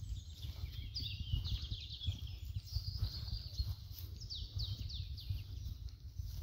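Small birds chirping high and thin, with a quick run of falling notes about four to five seconds in, over a fluttering low rumble.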